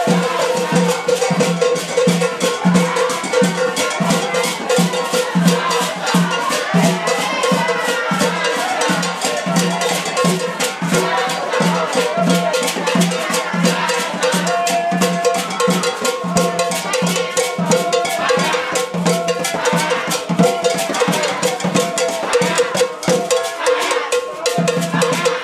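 Brazilian carnival samba music with fast, dense drumming over steady held notes.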